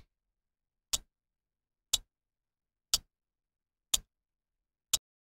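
Countdown-timer tick sound effect: a sharp, clock-like tick once every second, with dead silence in between.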